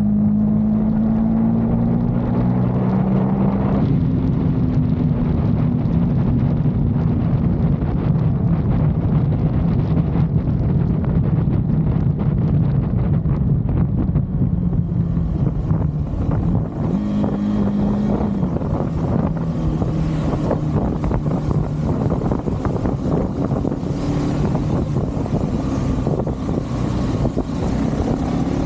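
KTM 390's single-cylinder engine running as the motorcycle is ridden, its pitch rising and falling with throttle and gear changes, under wind rushing over the camera's microphone.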